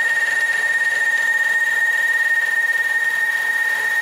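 Brushless motor of a converted mini lathe running the spindle at a steady speed, giving a steady high-pitched whine.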